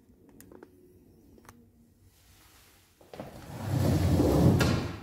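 Handling noise from a phone being picked up and moved: a few faint clicks, then, about three seconds in, a loud low rustling rumble lasting about a second and a half as clothing brushes against the microphone.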